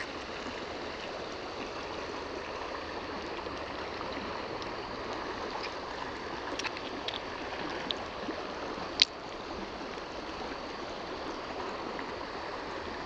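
Steady rush of flowing stream water, with a few light clicks and one sharper click about nine seconds in.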